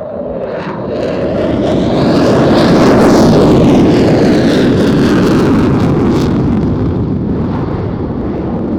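Turkish Air Force F-16C jet fighter passing: a loud jet roar that builds to a peak about three seconds in, its pitch sweeping down as it goes by, then slowly fading.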